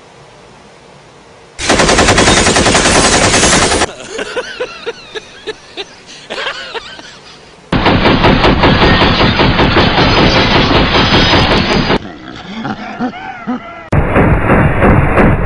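Three loud blasts of very rapid, machine-gun-like rattling, each lasting a few seconds, used as a prank noise to wake a sleeping friend. In the gaps between them, voices can be heard.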